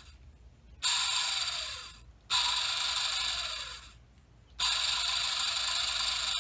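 Small DC motor from a BMW S85 V10's throttle actuator run on 12 volts in three bursts, with a high-pitched whirring squeal. The first two last about a second and a half each and fall in pitch as they die away; the third starts about four and a half seconds in and runs on steadily. It doesn't sound very happy: the owner takes it for a bad motor, full of carbon dust.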